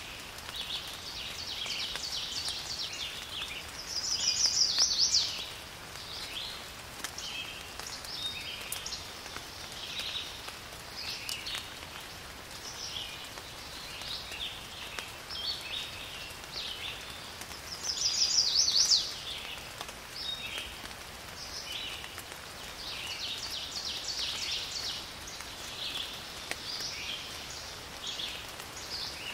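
Small songbirds chirping and singing continuously, with a louder rapid trill twice, a few seconds in and again past the middle, over a faint hiss of light rain.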